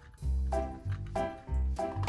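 Background music with a steady beat: bright repeated melody notes over a bass note about twice a second.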